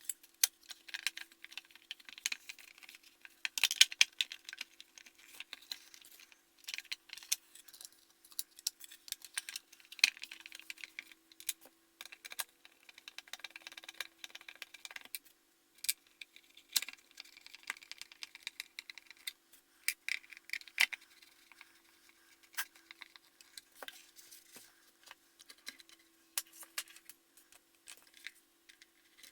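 Irregular clicks, taps and light rattles of the small metal and plastic parts of a Weller TC202 soldering station as it is reassembled by hand.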